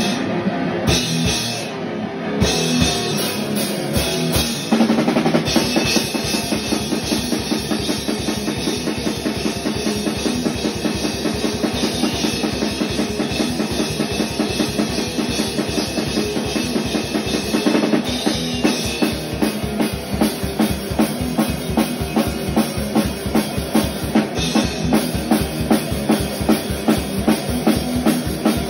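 A band playing fast metal on a Pearl drum kit and an electric guitar. Separate drum hits for about the first five seconds, then a fast, steady run of kick-drum strokes under the guitar.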